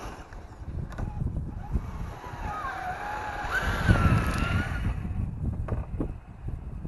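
Electric motor and gear whine of a Traxxas TRX-4 RC crawler, wavering up and down in pitch with the throttle. It is loudest about four seconds in as the truck climbs past close by, over a low wind rumble on the microphone.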